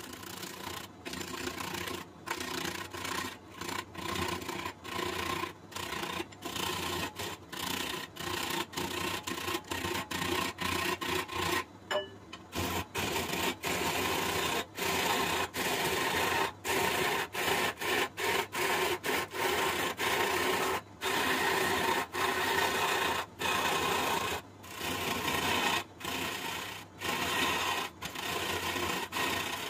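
Wood lathe turning a large jackfruit-wood blank, the hand tool cutting into the spinning wood with a continuous scraping, rasping noise and a steady hum underneath. The cut breaks off in many brief gaps, every second or so.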